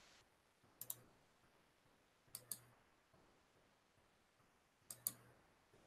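Computer mouse clicking faintly: three quick double-clicks, about a second and a half apart, over near silence.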